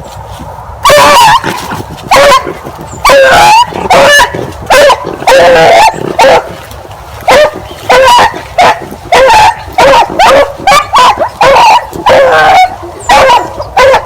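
A pack of beagles baying on a rabbit's track, a string of loud, pitched barks coming irregularly, often several close together. This is hound music from dogs driving a running rabbit.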